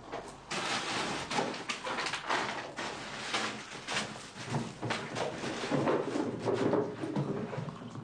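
Rummaging in a kitchen: cupboards and drawers opened and shut, with objects knocked and shuffled about in a continuous jumble of clicks and clatter.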